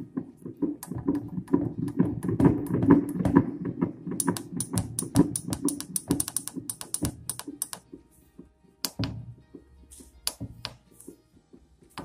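Simulated infant heart sounds played through the auscultation simulator's loudspeaker: a quick, even run of low thuds, about four a second. From about four seconds in, a stretch of many sharp clicks takes over, thinning out after about eight seconds.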